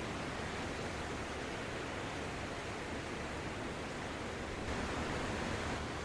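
Sea surf: small waves breaking and washing up a sandy shore as a steady rushing hiss, swelling a little about five seconds in.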